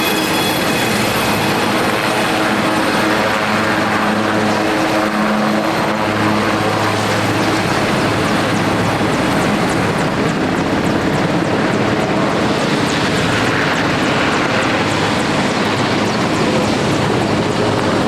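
Helicopter in flight: loud, steady rotor and engine noise, with a low hum that fades after about seven seconds.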